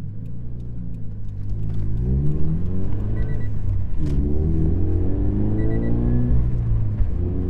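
Scion FR-S's 2.0-litre flat-four, fitted with a GReddy exhaust, accelerating hard through the gears. The engine note rises, drops at an upshift about four seconds in, then climbs again and drops once more near the end.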